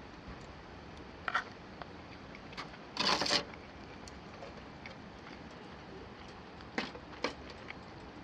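Sounds of someone eating a meal: a few light clicks of tableware and a short scraping rustle about three seconds in, the loudest sound, over a steady low hiss.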